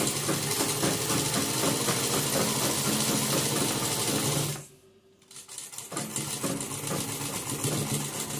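Sewing machine running steadily as it stitches fabric. It stops for about a second midway through, then starts again.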